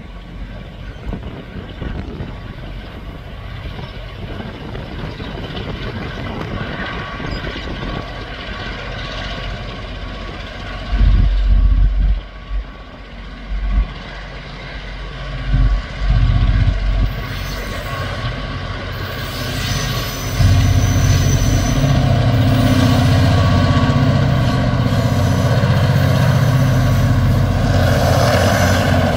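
TasRail diesel-electric locomotives TR13 and DQ 2009 working hard up a grade with a log train, their engines growing steadily louder as they approach. Midway there are several brief, sudden low surges. From about two-thirds of the way in, the engines are loud and steady as the lead locomotive passes close.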